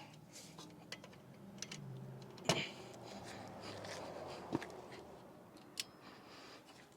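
Hand tools on the bolts of a rear brake caliper being torqued down: a wrench ratchets, with several sharp metallic clicks, the loudest about two and a half seconds in.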